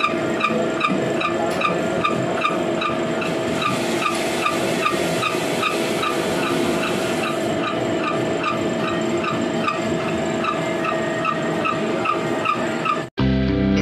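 Large gear-cutting machine running as it cuts the teeth of a slewing bearing's ring gear: a steady machine hum with regular ticking, about three or four strokes a second. Near the end it cuts off abruptly and guitar music begins.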